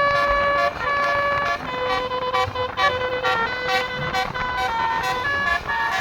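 Indonesian 'basuri' telolet bus horn playing a tune: a run of pitched horn notes stepping up and down, some held and some short.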